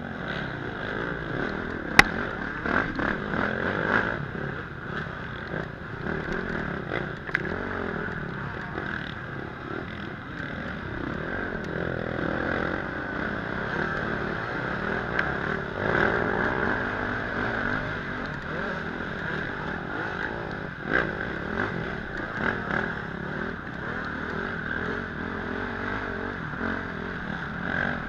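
Onboard sound of a KTM off-road motorcycle's engine running and revving up and down on a slow trail climb, with other dirt bikes close ahead, plus rattling and clatter from the bike. A single sharp knock comes about two seconds in.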